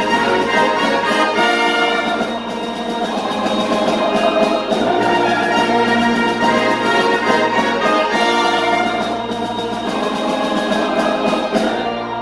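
Live classical sacred music from a choir and instrumental ensemble, with brass instruments prominent, playing without a break.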